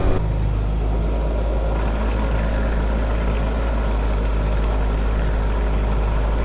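20 hp Tohatsu four-stroke outboard motor running steadily at a constant speed, with a strong low rumble.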